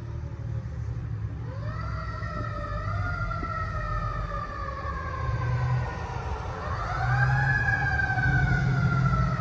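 Fire engine siren wailing as the engine drives off on a call: the pitch winds up quickly and slides slowly down, twice, over a low rumble of engines and traffic.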